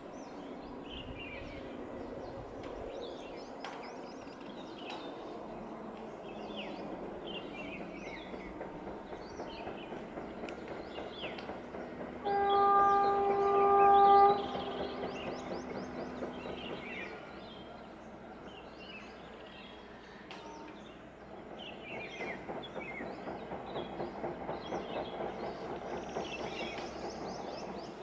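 An electric locomotive train approaching on the line, with a steady rumble and one loud, steady two-second horn blast about halfway through. The rumble grows again with a rhythmic clatter near the end as the train draws closer.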